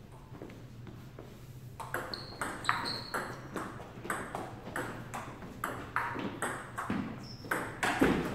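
Table tennis rally: a ping-pong ball clicking back and forth off paddles and the table, about two hits a second. The rally starts about two seconds in.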